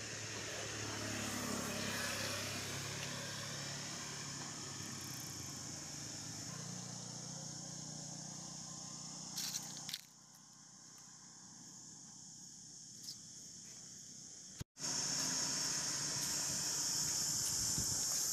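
Insects trilling steadily in a high-pitched chorus, with a motor vehicle passing along the road in the first few seconds. The sound drops out briefly about two-thirds of the way in, and then the insect chorus comes back louder.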